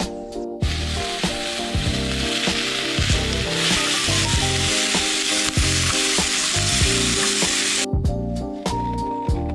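Food sizzling in a hot frying pan: a steady frying hiss that starts just under a second in and cuts off abruptly near the end.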